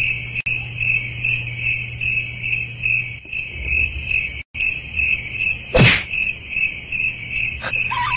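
Steady cricket-like chirping, two to three even pulses a second, over a low hum that stops about three seconds in. About six seconds in there is one sudden loud noise.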